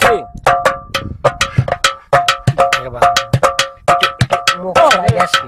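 Improvised folk percussion in a fast, even rhythm of about four to five strikes a second: struck metal ringing with clear bell-like tones, with dry knocks between the ringing strikes.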